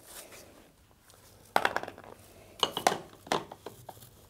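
Hard plastic clicks and knocks as the i-mop scrubber's round scrub brushes are pushed and twisted onto their drive hubs. There is one sharp knock about a second and a half in, then a short cluster of clicks and one more knock over the following two seconds.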